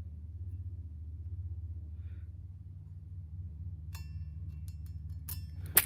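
A steady low hum with a light metallic clink about four seconds in and one sharp crack just before the end.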